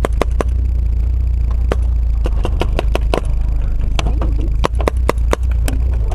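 A steady low rumble, with many irregular sharp clicks and cracks over it.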